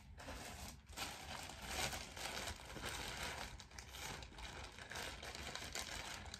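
Thin plastic poly mailer bag crinkling and rustling as it is handled and pulled open, with many small crackles.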